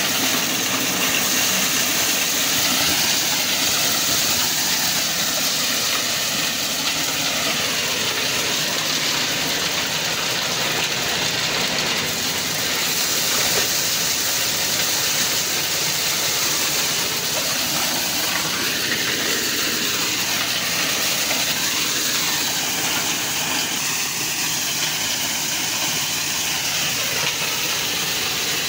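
Locally made maize thresher running steadily as corn cobs are fed into its hopper and shelled grain pours out: a loud, even mechanical noise.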